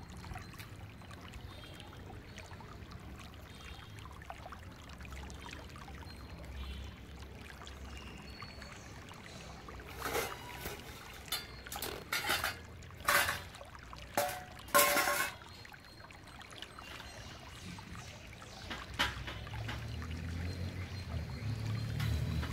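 Water trickling and sloshing, with stainless steel utensils clanking and ringing in a cluster of sharp metallic knocks about ten to fifteen seconds in as they are set into a wire dish rack.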